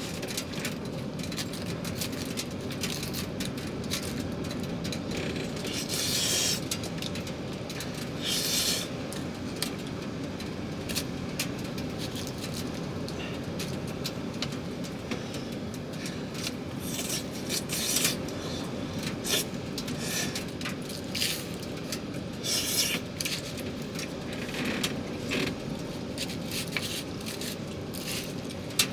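Steady rain noise with many small scattered clicks, and a few short scraping sounds now and then, like metal cookware or a utensil being scraped.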